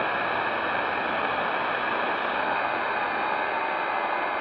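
Raddy RF320 portable shortwave radio's speaker putting out steady static hiss, with faint steady FT8 digital-mode tones under the noise. The radio is tuned near 14.07 MHz, the 20-metre FT8 frequency, a little off frequency.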